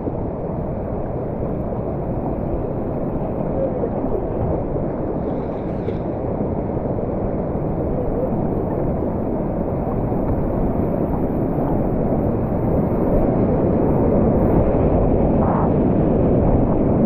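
Fast, high-water whitewater river rushing around a kayak, a steady roar of water that grows louder as the boat runs into a rapid, with a couple of brief paddle splashes.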